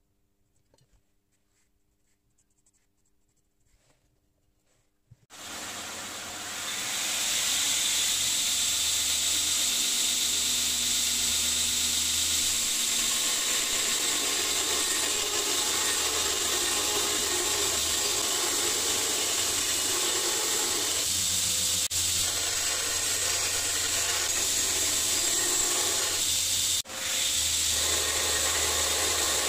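Belt grinder running with a steel cleaver blank, forged from a bearing, held against the abrasive belt: a steady, loud hiss of belt on steel. It starts about five seconds in after near quiet, builds for a couple of seconds and breaks off briefly near the end.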